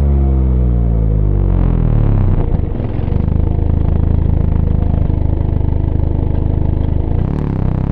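Mazda ND Roadster (MX-5) four-cylinder engine and exhaust. The revs fall for about two and a half seconds, hold steady at low revs, then begin to climb again near the end.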